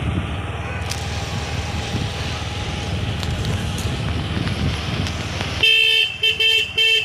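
Rumble of a moving two-wheeler's engine and wind noise while riding, then a vehicle horn honks three times in quick succession near the end, the first blast longer than the other two.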